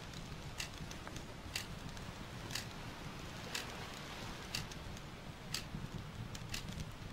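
Wood fire crackling in a fireplace over a steady low hiss, with a sharp tick about once a second and lighter irregular crackles between.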